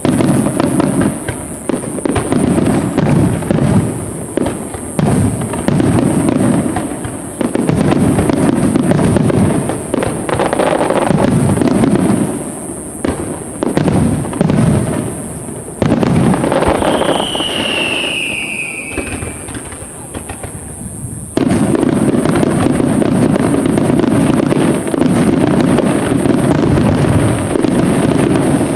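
Aerial fireworks shells bursting one after another in a string of loud booms. About two-thirds through, a single whistle falls in pitch. From about three-quarters through, the bursts merge into a dense, continuous barrage with crackling.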